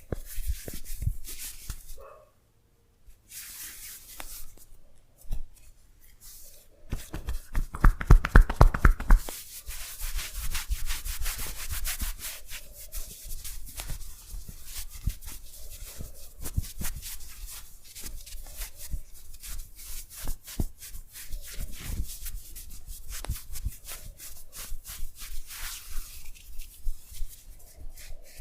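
Hands rubbing and stroking during a massage, a dense run of short strokes. A louder quick run of strokes comes about seven to nine seconds in.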